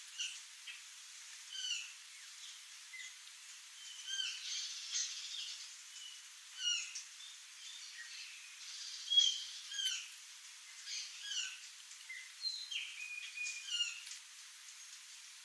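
Birds calling: short, hooked chirping notes repeated every second or so, with a couple of longer level whistled notes a little before the end.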